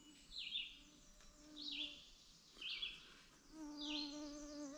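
Faint outdoor sounds: an insect buzzing in passes, strongest near the end, while a bird gives a short, falling chirp about once a second.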